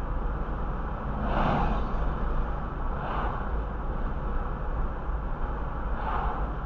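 Car driving at about 30 mph: a steady low rumble of road and engine noise, with oncoming vehicles whooshing past about a second in, again around three seconds in, and near the end.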